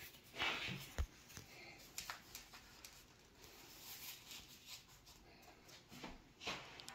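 Faint rustling and crinkling of thin phyllo dough sheets as they are lifted off a stack and laid into a glass baking dish and smoothed flat by hand, with a soft knock about a second in.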